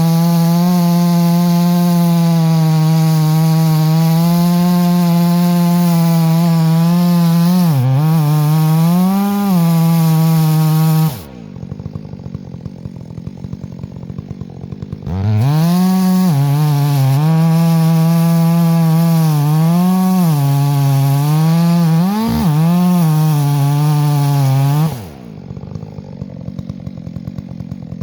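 Gas chainsaw running at high speed, its pitch sagging and recovering as it loads in the cut. Twice it drops to a ticking idle for about four seconds before being revved up again.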